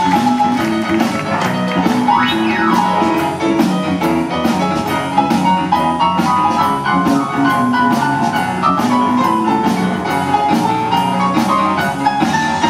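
Live blues-rock band playing an instrumental passage: a drum kit keeping a steady beat under electric guitar and keyboard. About two seconds in, one note slides up and back down.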